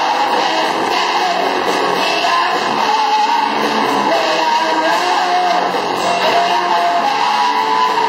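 Live rock band playing a song, led by a strummed guitar, loud and steady throughout.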